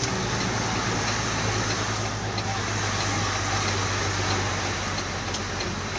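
Engine and road noise heard from inside a moving vehicle's cab: a steady low engine hum over an even rush of tyre noise.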